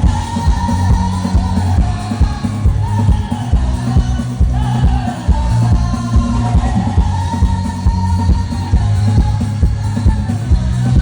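Loud music with a singing voice and a heavy, pulsing bass beat, played through a large DJ speaker system.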